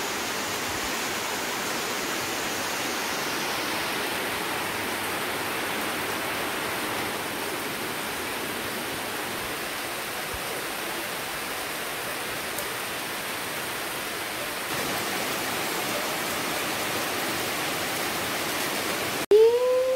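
Steady rain falling, an even, constant hiss of water. It cuts off abruptly just before the end, followed by a short pitched call that rises and falls.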